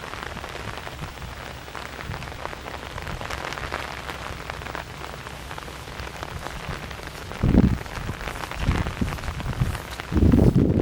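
Tropical-storm rain falling steadily, with a dense spatter of drops. Two short low rumbles break in, one past the middle and one near the end.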